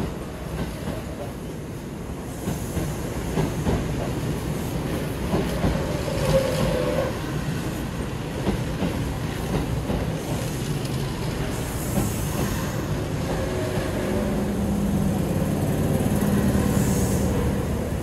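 Kintetsu electric commuter train pulling out of the station, with its wheels clicking over the rail joints and a low motor hum that builds slightly near the end as the last car goes by.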